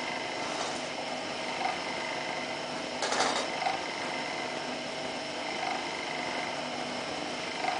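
Electric motor driving a small screw oil press through a worm-gear reducer, running with a steady hum while cold-pressing oil. A faint sound repeats about every two seconds, and there is a short, louder burst of noise about three seconds in.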